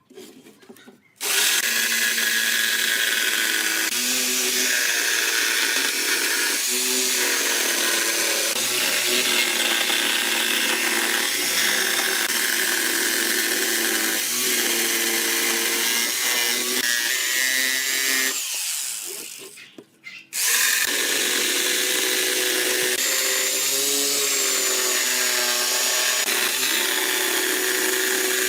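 An electric power tool motor running hard and steadily, its pitch dipping briefly several times as it takes load. It winds down about 18 seconds in, stops for a moment and starts up again.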